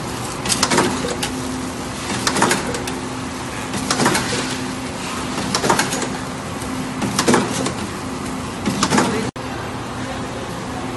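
Steady hum of sausage-production machinery, with a short, sharp noisy burst repeating about every second and a half as a machine works through its cycle. The bursts stop after a brief dropout near the end, leaving only the hum.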